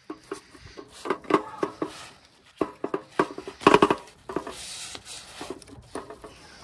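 Handling of a weigh sling on a tripod-mounted dial scale: rapid, irregular clicks, clinks and nylon rustles as the sling is hooked on and lifted. They are densest about three and a half seconds in, followed by a short rustle.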